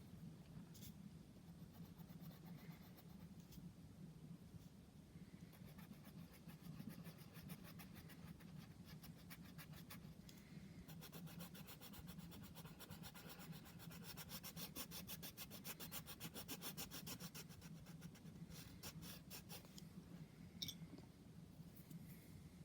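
Faint scratching of a drawing tool on paper, in rapid back-and-forth colouring strokes that grow busiest in the middle, over a steady low hum. A single sharp tap comes near the end.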